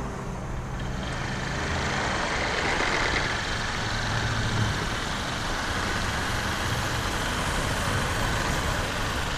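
Small step-through motorbike engine running, growing louder over the first few seconds as it pulls up, then idling steadily.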